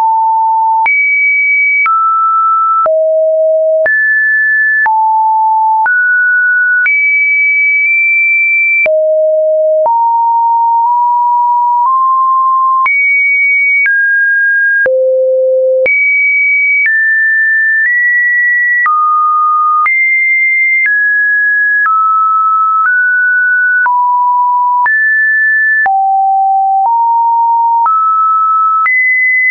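Computer-generated test tones: a run of pure electronic beeps, each held for about a second, then jumping to a new random pitch, some low and some high, with a faint click at each change.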